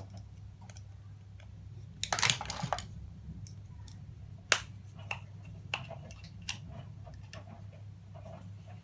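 Irregular sharp clicks and small clatters of plastic plug casings, metal pins and hand tools as electrical plugs are taken apart for their brass. The loudest is a single crisp click about four and a half seconds in, and a low steady hum runs underneath.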